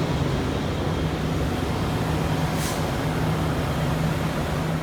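Semi truck's diesel engine idling with a steady hum, and a brief hiss about halfway through.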